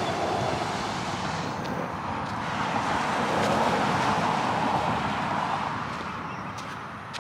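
A car passing by on the road, its tyre and road noise swelling to a peak about halfway through and fading away.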